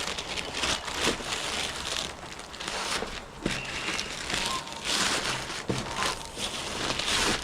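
Plastic packaging crinkling and rustling as it is handled, with a few sharper clicks.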